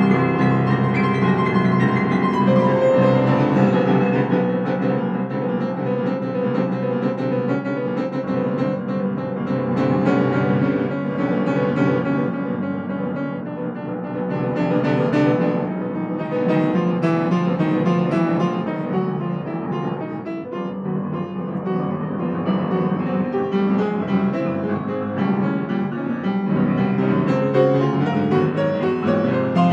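Yamaha grand piano played solo in free improvisation, many notes sounding together, easing to quieter passages about 14 and 21 seconds in.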